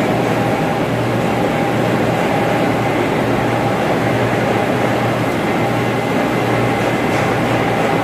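Steady, loud drone of running ventilation machinery, with a constant low hum and a thin steady whine over it.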